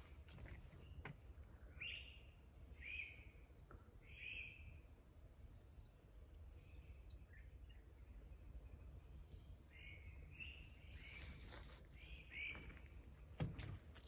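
Faint woodland ambience: a steady high insect drone, with a bird giving short calls several times in two spells. A few footsteps on the trail near the end.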